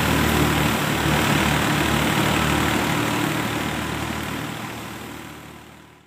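Tractor engine driving a wheat thresher: a steady engine note under a wide rushing noise, fading away over the last two seconds.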